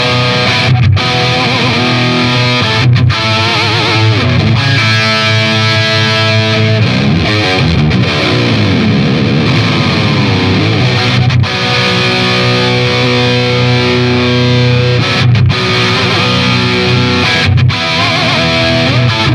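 Distorted electric guitar played through a Marshall DSL50 valve head into a Marshall 1960 4x12 cabinet loaded with Celestion G12T-75 and Vintage 30 speakers, picked up by a microphone at the speaker. It plays ringing chords and riffs, stopping briefly a few times, with one long note near the middle whose pitch dips and comes back up.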